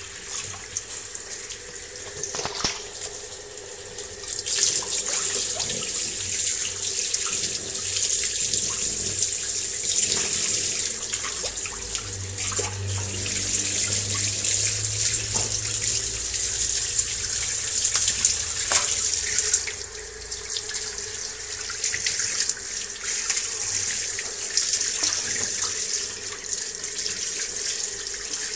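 Tap water running steadily as a French bulldog is washed, getting louder about four and a half seconds in.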